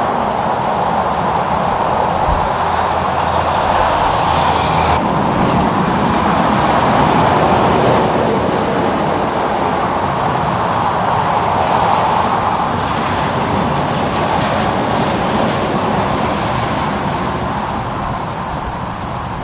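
Road traffic passing steadily, a continuous rush of tyre and engine noise from trucks and cars on the road.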